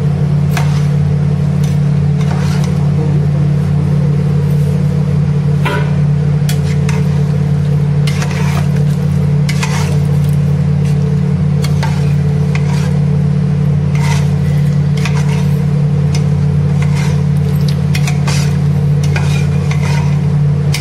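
Chickpea curry (chole) cooking in a pan and being stirred, with frequent scrapes and clinks of the spoon against the pan and a light sizzle, over a loud steady low hum.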